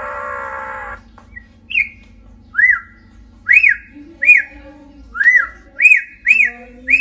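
A cat calling: a held, buzzy yowl for about the first second, then a run of about eight short, high-pitched mews, each rising and falling in pitch, coming faster toward the end.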